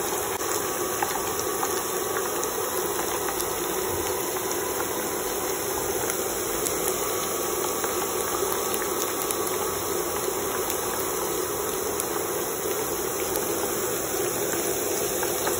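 Batter-coated chicken pieces (chicken pakoda) deep-frying in hot oil: a steady sizzle with scattered small crackles.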